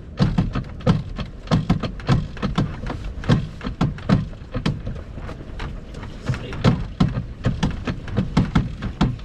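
A sail luffing in the wind, flapping with an irregular run of sharp snaps and rattles, about two or three a second: the sail is not yet trimmed in tight.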